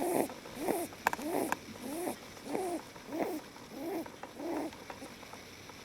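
Lop rabbit snoring in its sleep: a quick, even run of short pitched snores, each rising and falling, about three every two seconds, that stops a little before the end. A couple of faint clicks fall among them.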